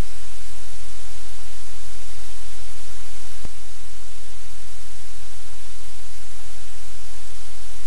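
Loud, steady static hiss with a low electrical hum, the noise of a livecam's audio line. A single sharp click about three and a half seconds in, after which the hiss is slightly quieter.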